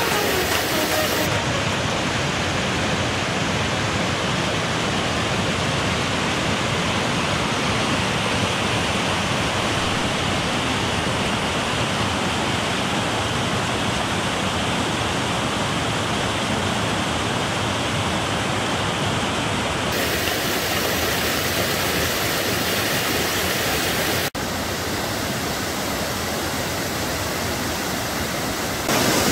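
Muddy floodwater, swollen by heavy rain, rushing down a stone-lined channel and a rocky waterfall in a steady roar. Its tone shifts abruptly a few times, about two-thirds of the way through and again near the end.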